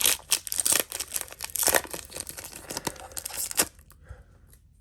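Foil Pokémon booster pack wrapper being torn open and crinkled, a rapid run of ripping and rustling that stops a little before the end.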